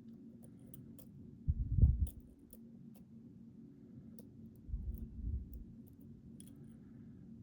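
Scattered faint clicks of lock picks working inside a Mul-T-Lock Interactive LFIC cylinder, with two louder low bumps about one and a half and five seconds in.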